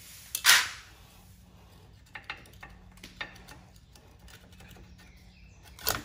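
Hawk DTC-60 brake pads being handled at a rear Brembo fixed caliper. A loud metallic clatter comes about half a second in, then scattered light clicks and taps as the inner pad is worked loose, and a short sharp scrape near the end as it comes out of the caliper.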